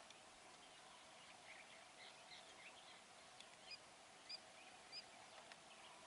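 Faint birdsong: several birds giving short chirps, joined in the second half by three short, high whistled notes about half a second apart, over a faint steady hum.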